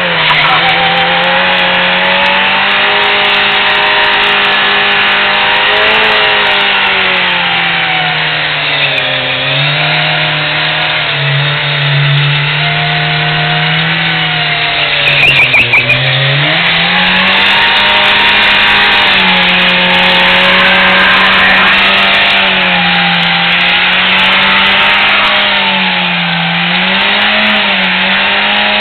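2010 Kawasaki Z1000's inline-four engine held at high revs, the pitch wavering up and down, while its rear tyre spins against the pavement in a burnout. The revs sag about halfway through and climb back.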